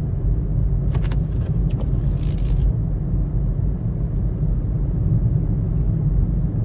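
Steady low rumble of a vehicle driving, with a few faint rustles about a second in.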